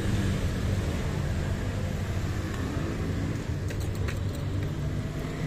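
Motorcycle engine running steadily, with road and wind noise, and a few faint clicks about four seconds in.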